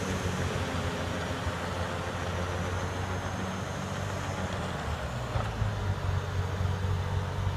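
New Holland skid steer's diesel engine running steadily while driving a snowblower attachment, with the engine note rising slightly and getting a little louder about five seconds in.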